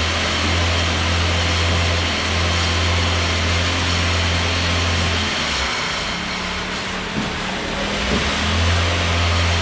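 An engine running steadily with a deep hum, which weakens for a few seconds in the middle and then comes back.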